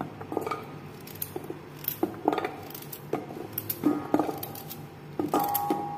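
Kitchen knife slicing a raw carrot held over a stainless steel bowl, with irregular clinks and knocks as the cut rounds drop into the bowl. One knock near the end leaves the bowl ringing briefly.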